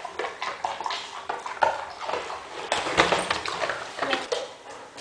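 A dog nosing and knocking a plastic cup about, with its claws and paws clicking on a wooden floor: a run of irregular clicks and knocks.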